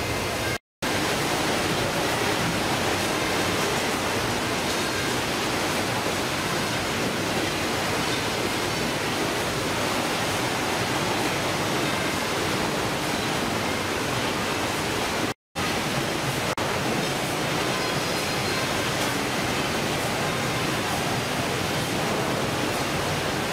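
Steady, even noise of fish-processing machinery, conveyors and running water on a factory ship's processing deck. It is broken by two brief dropouts to silence, about a second in and about fifteen seconds in.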